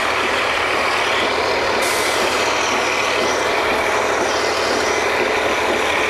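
Heavy machinery of a working oil-drilling rig running steadily, a loud even mechanical noise. A hiss of air joins about two seconds in and slowly fades.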